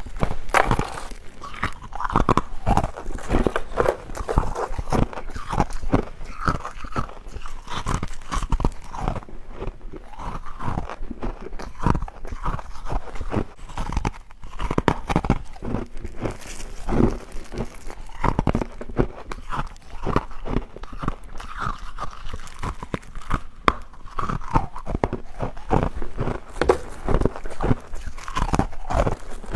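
Someone biting and chewing crunchy freezer frost close to the microphone, with dense, irregular crackling crunches throughout.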